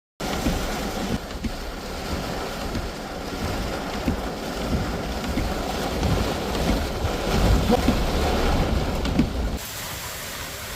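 Strong thunderstorm wind gusting and buffeting the microphone, over a steady hiss of wind-driven rain; the gusts ease near the end.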